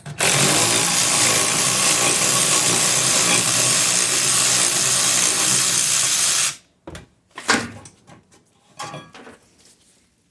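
A handheld power tool running steadily for about six and a half seconds, then cutting off suddenly, followed by a few light knocks.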